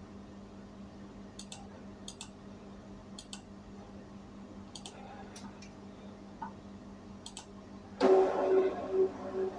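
Computer mouse clicking several times, mostly in quick double clicks, over a low steady hum. About eight seconds in, an Epson L3150 inkjet printer's mechanism starts up much louder, a whir with a steady pulsing tone, as its power-cleaning cycle for clogged print heads begins.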